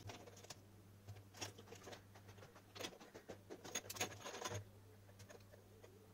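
Faint, irregular clicks and light taps of a soldering iron, wires and a plastic torch housing being handled while a wire is desoldered, over a steady low hum.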